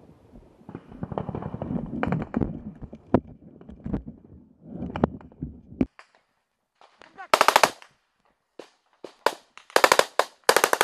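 Gunfire from about seven seconds in: short bursts of rapid automatic shots, single shots between them, and another burst near the end, marking the start of a firefight. Before that, rumbling handling noise and footsteps from the soldier wearing the camera as he walks through vegetation.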